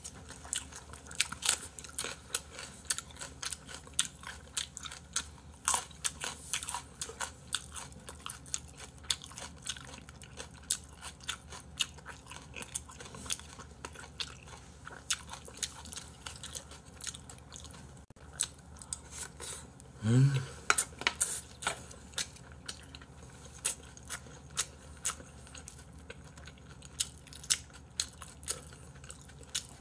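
Close-miked chewing and crunching of food, with a steady run of small sharp mouth clicks and bites.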